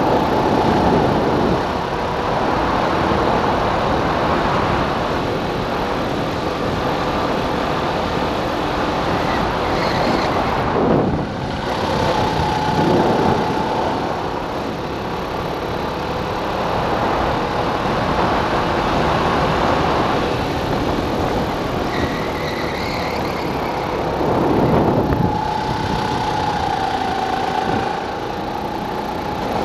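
Racing kart engine running hard at speed, its pitch dipping as the driver lifts for corners and climbing again on the throttle. There is a sharp drop about eleven seconds in and a strong pickup around twenty-five seconds.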